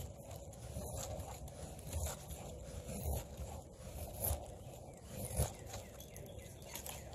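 Quickhatch Quicklore knife blade shaving thin curls off a wooden stick while making a feather stick: short, uneven scraping strokes, about one a second.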